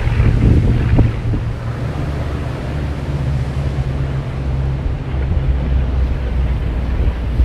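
Wind buffeting the microphone, heard as a steady low rumble with a fainter hiss above it.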